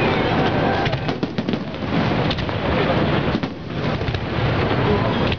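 Fireworks display: aerial shells bursting one after another, with many sharp bangs and crackles running together.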